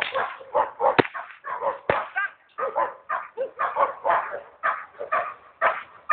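Dog barking in rapid repeated bursts during protection-training bite work, with a sharp whip-like crack about a second in and another just before two seconds.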